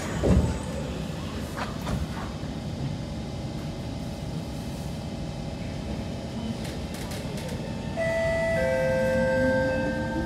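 Steady rumble inside the carriage of a Kawasaki C151 metro train, with a short thump just after the start. About eight seconds in, the train's multi-tone electronic announcement chime sounds. Near the end the traction motors' whine starts rising in pitch.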